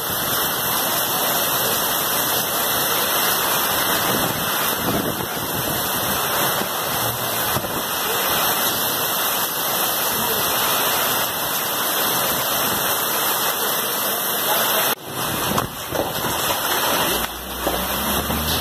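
Heavy rainstorm downpour: a dense, steady rush of pouring rain, with brief dips in level near the end.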